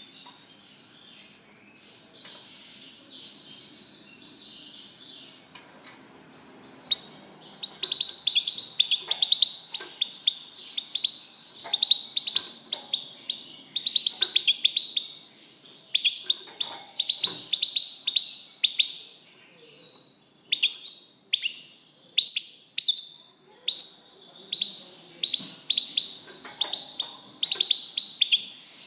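European goldfinch singing: a long run of rapid, high twittering notes, soft at first and louder from about seven seconds in, with sharp repeated notes several a second and a brief pause about two-thirds of the way through.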